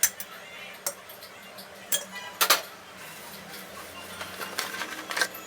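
Metal kitchen utensils clinking and clattering: a series of sharp knocks spread out, the loudest about two and a half seconds in.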